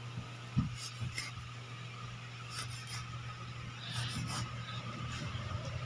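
Kitchen knife scoring the skin of a whole pompano on a wooden cutting board: faint scraping strokes of the blade through the skin, with a few light taps of the knife on the board. A low steady hum runs underneath.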